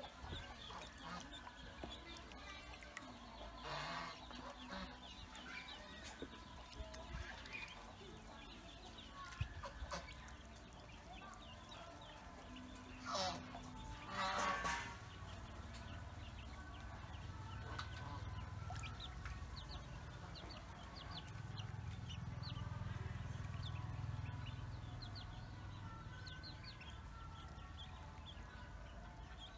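Pekin and black ducklings peeping constantly as they swim in a basin of water, many short high peeps overlapping. A few louder fowl calls stand out: one about four seconds in and two close together near the middle.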